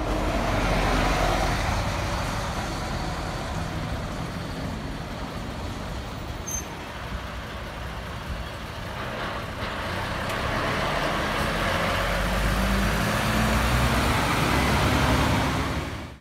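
Heavy diesel vehicles passing close: a coach and then a MAN dump truck. The engine note rises in pitch and grows louder over the last few seconds.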